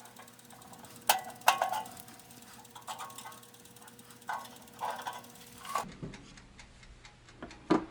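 Handling noises in the workshop: a string of sharp knocks and clicks, the two loudest about a second in with brief ringing. A steady hum runs underneath and cuts off about six seconds in.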